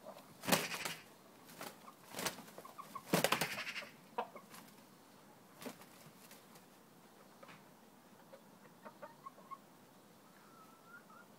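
Two roosters, a Thai game rooster and a mottled bantam, sparring: three flurries of flapping wings in the first four seconds, followed by a few soft clucks, with a short rising call near the end.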